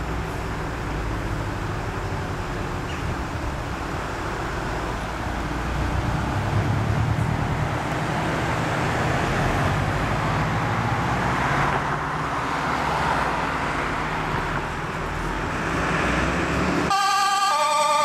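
Volvo FL fire truck's diesel engine running as it pulls out of the station with blue lights on. About a second before the end, its two-tone siren starts, loud and alternating between two pitches.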